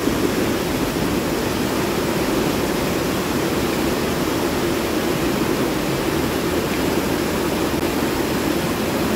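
Steady rush of falling water, an even hiss that does not change.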